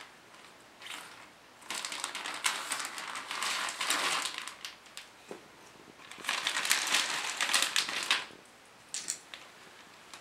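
Clear plastic packaging bag crinkling and rustling while a cat harness and leash are unpacked from it, in two long stretches with a few short crackles between.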